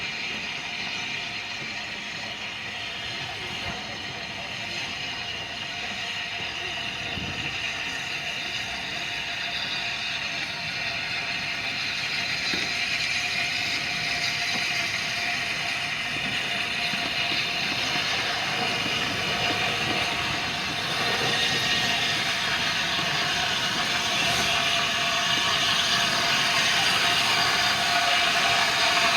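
Two steam locomotives, the A1 Pacific Tornado and the Atlantic Beachy Head, running slowly on the approach: a steady hiss of steam and the mechanical running noise of the engines, growing steadily louder as they come closer.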